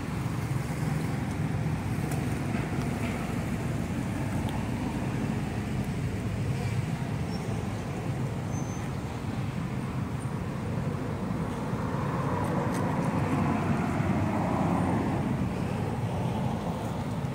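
Steady low rumble of outdoor background noise, swelling slightly about twelve seconds in.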